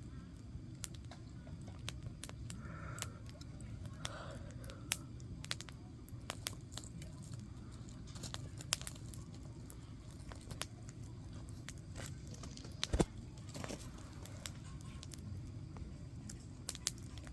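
Wood campfire crackling: irregular sharp pops and snaps over a low steady rumble, with one louder pop about thirteen seconds in.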